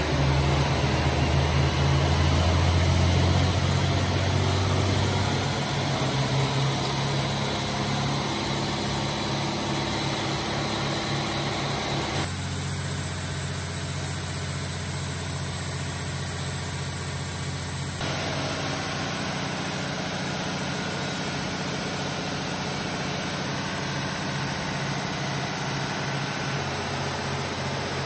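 Cummins 855 Big Cam 14-litre six-cylinder diesel running steadily on an engine dynamometer, fuelled on straight diesel: a deep, pulsing drone, a little louder in the first few seconds. The tone shifts abruptly twice, once about twelve seconds in and again about eighteen seconds in.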